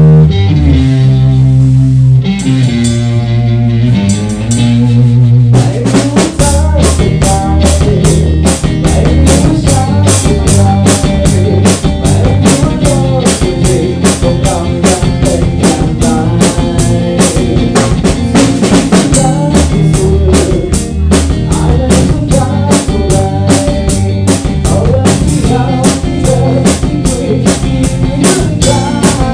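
A small rock band playing live in a room: guitars ring out held chords alone for the first few seconds, then a full drum kit comes in about five seconds in and the band plays on together to a steady beat.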